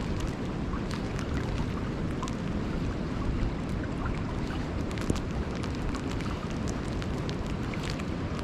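Wind buffeting the microphone over the steady rush of river water, with scattered light ticks throughout.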